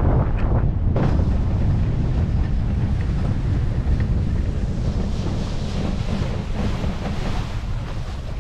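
Wind buffeting the microphone and water rushing and hissing against the inflatable hull of a flying-boat trike as it slows to a stop on the water after touchdown, with no engine tone to be heard. The rush eases slightly toward the end.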